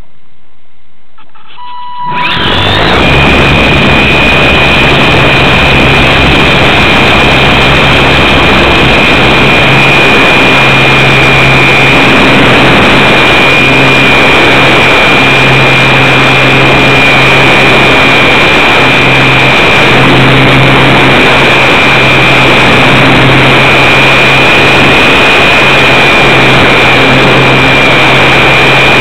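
Electric motor and propeller of a Hobbyzone Super Cub RC plane, heard from a camera mounted on the plane. It starts suddenly about two seconds in and then runs steadily under power with a high, constant whine over loud rushing noise as the plane takes off from grass and climbs.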